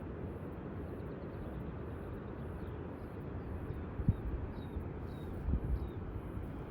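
Steady low rushing of wind across the microphone, with a small bird chirping in short high notes through the second half and a few low bumps from gusts.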